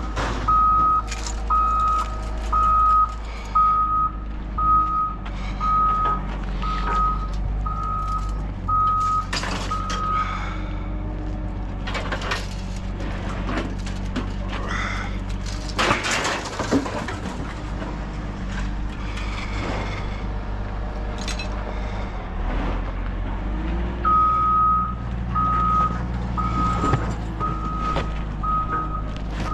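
A heavy vehicle's backup alarm beeps steadily, about three beeps every two seconds, over its running engine. The alarm stops about ten seconds in and starts again near the end, with scattered knocks in between.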